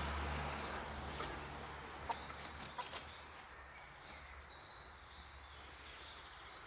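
Hens clucking quietly, with a few light clicks about two to three seconds in and a low rumble that fades out about four seconds in.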